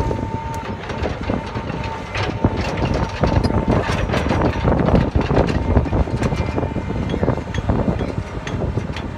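Caterpillar 315D excavator moving under power: the diesel engine running with a low rumble while its steel tracks clank and knock in a dense, irregular rattle, with a steady whine over the first few seconds.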